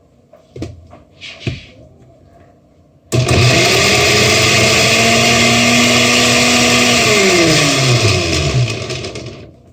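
A few light knocks, then a countertop blender switched on abruptly, running at a steady high speed on chopped red onion and lemon. About four seconds later it is switched off and its motor whine falls in pitch as it spins down to a stop.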